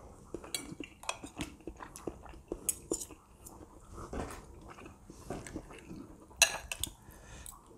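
Metal spoon and fork clinking and scraping on a plate, with quiet chewing between. A quick run of clinks comes a little after six seconds.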